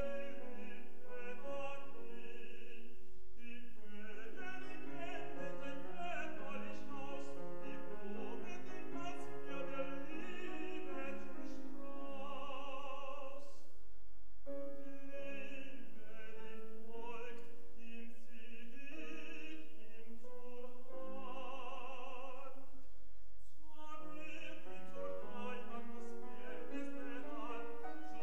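Classical tenor singing with grand piano accompaniment, the voice carrying strong vibrato, with two long held notes about twelve and twenty-one seconds in.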